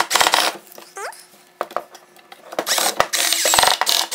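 Cordless drill driving a 2-inch wood screw through a pocket hole into a pine board, in two runs: a short burst at the start and a longer run from about two and a half seconds in until near the end. The motor's whine rises and falls with the trigger, over a rapid clicking.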